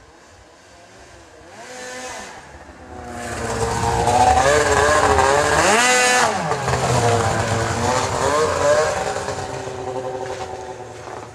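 2001 Arctic Cat ZR 800 snowmobile's two-stroke twin engine running as the sled approaches, passes close by and pulls away. The engine note grows loud, rises and then drops in pitch as it goes past about six seconds in, then fades.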